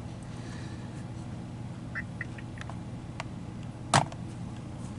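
Plastic clicks and taps from handling a DYMO label maker, with one sharper click about four seconds in, over a steady low hum.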